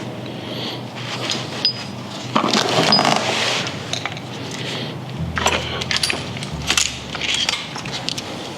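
Hand tools and metal brake parts clinking and rattling in irregular bursts of sharp clicks, during a rear brake rotor and pad job.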